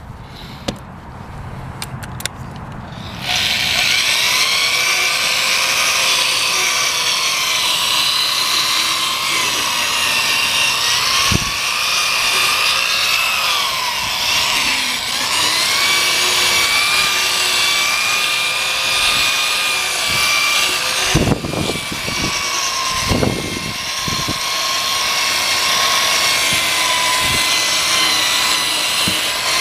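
Electric drill spinning a 3M headlight-restoration sanding pad against a plastic headlight lens. The motor whine starts about three seconds in and wavers up and down in pitch as the pad is pressed into the lens, with a few knocks past the middle.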